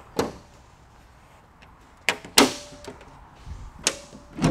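Hood latch of a 2014 Ford Mustang being released and the hood lifted open: a series of five sharp clunks and clicks, the loudest about two and a half seconds in, two of them followed by a short metallic ring.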